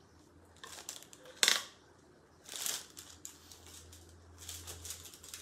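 Clear plastic bag crinkling and rustling as it is handled, in short scattered bursts, with the loudest single burst about one and a half seconds in and a run of small crackles near the end.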